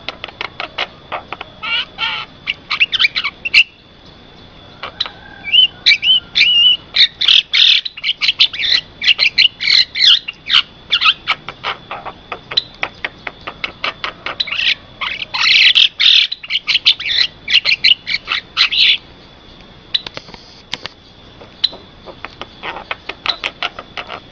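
Javan myna calling: bursts of rapid, sharp chattering notes with short pauses between runs, over a faint steady high-pitched tone.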